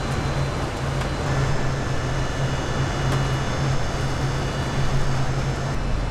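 Ventilation fans running: a steady low hum under an even rushing air noise.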